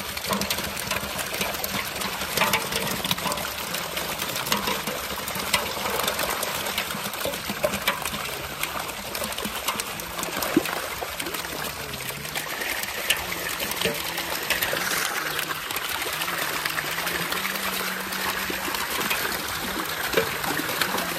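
A dense mass of live fish thrashing in shallow water inside a gathered net: a continuous splashing and spattering made of many small, quick splashes.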